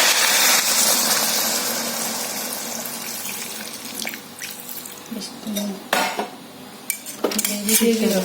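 Water added to a hot kadai of frying chickpea masala, a loud sizzle that dies away over about three seconds, followed by a spoon knocking against the pan a few times as it is stirred.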